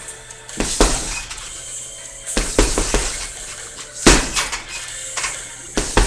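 Punches landing on a chain-hung leather heavy bag, about eight sharp hits in irregular combinations, some in quick pairs. The hanging chains rattle and clink after the hits.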